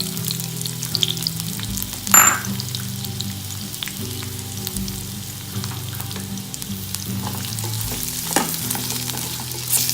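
Sliced onions sizzling and crackling in hot oil in a pan as they are stirred, with a few sharper stirring sounds, the loudest about two seconds in.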